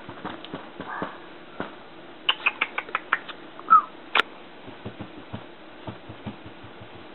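Red toy poodle puppy giving one short, falling squeak a little past halfway, the loudest sound here. Around it are a quick run of light clicks just before the squeak, a sharp click just after it, and soft low taps later on.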